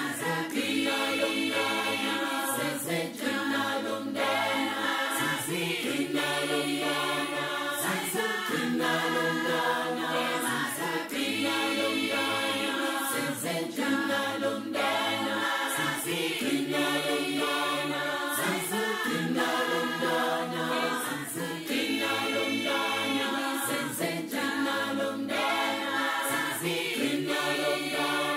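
Background music: a choir singing sustained notes in harmony over a low bass line, in a phrase that repeats every couple of seconds.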